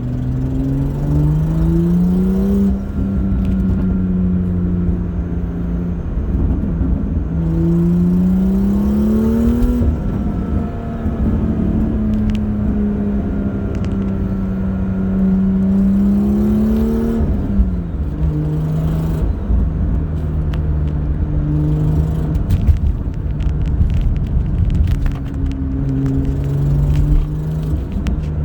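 BMW M2's N55 turbocharged inline-six running, with the revs raised twice and held, then settling to a steady idle about two-thirds of the way through. Light ticking runs over the engine note; it comes from a hole in the turbo (exhaust) manifold leaking exhaust.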